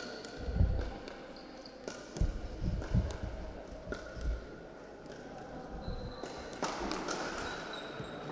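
Pickleball play in a sports hall: sharp pops of paddles striking the plastic ball, with dull thumps and brief high squeaks mixed in, echoing off the hall.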